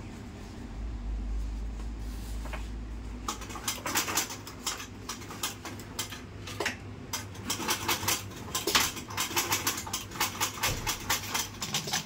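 Dürkopp Adler 967 heavy-duty industrial sewing machine stitching through a thick webbing tow strap. A low hum comes first, then from about three seconds in a rapid run of sharp clacks, about three a second, as the needle drives through the strap.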